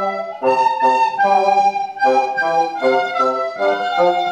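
A group of children playing a tune together on soprano recorders, the notes changing a few times a second, with a bassoon playing a lower line beneath them.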